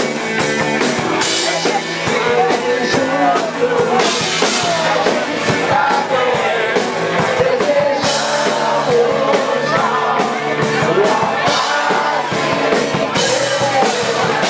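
Live rock band playing loudly with a sung vocal over drum kit and amplified instruments, cymbal crashes ringing out every few seconds.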